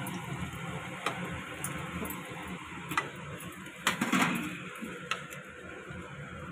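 Besan-and-onion pakoras deep-frying in hot oil in a kadhai: a steady sizzle with a few sharp clicks and knocks, the loudest around four seconds in.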